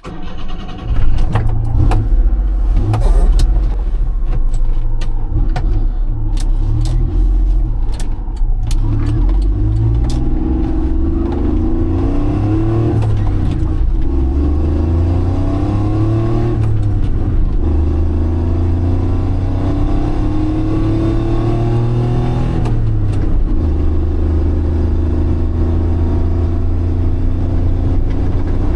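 A 1988 Honda Acty kei truck's 550 cc engine catching about a second in, then pulling away: the revs rise and drop back with three gear changes before settling into a steady run.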